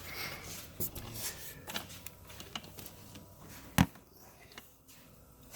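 Quiet handling noise: a few light clicks and taps, with one sharper knock a little under four seconds in.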